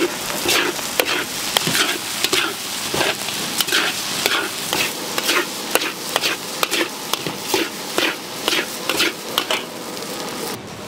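Metal spatula scraping and tossing a big batch of shrimp and egg fried rice in a hot wok, about two strokes a second over a steady sizzle. The sizzle drops away just before the end.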